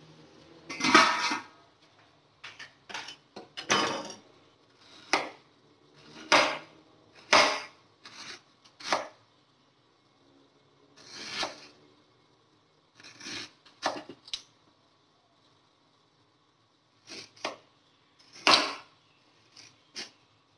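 Chef's knife slicing ginger on a wooden chopping board: sharp knife strikes on the board at an uneven pace, some single and some in quick runs, with short pauses between.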